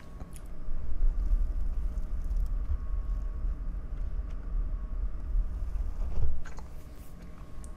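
Hands rubbing and squeezing the foam windscreen of a studio microphone, heard as a low, uneven rumbling close on the microphone.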